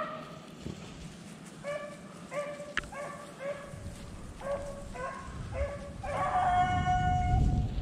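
A rabbit-hunting beagle baying: a string of short, pitched barks, then one long drawn-out bawl near the end.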